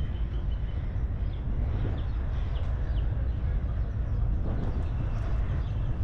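Outdoor city ambience: a steady low rumble with a few faint high chirps.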